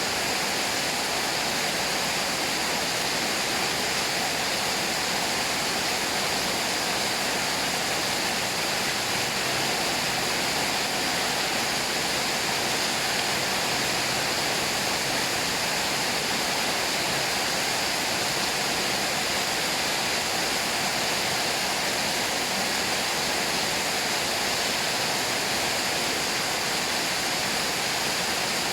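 Steady, unbroken rushing of running water.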